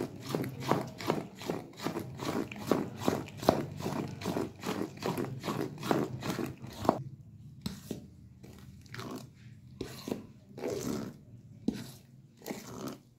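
A metal spoon beating thick cake batter in a stainless steel bowl, with quick scraping strokes about four a second. About seven seconds in, the strokes slow and grow fainter and uneven.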